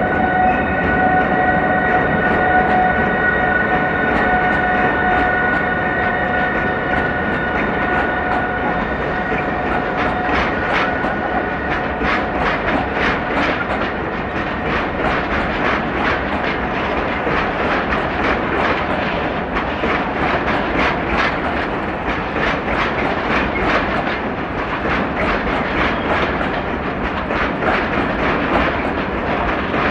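Freight train of Eas open wagons passing behind a Newag E6ACT electric locomotive: a steady high whine over the first ten seconds or so gives way to a rapid, continuous clatter of wagon wheels over the rail joints.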